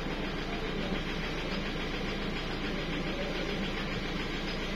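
Toyota 1GD 2.8-litre four-cylinder diesel engine idling steadily.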